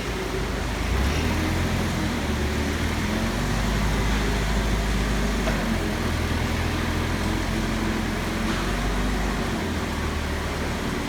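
A steady, low mechanical drone of a running engine or machine, with no distinct knocks or clicks.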